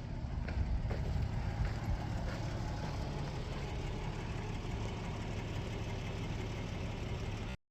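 Vehicle engine running with a steady low hum and a few faint ticks, cutting off abruptly near the end.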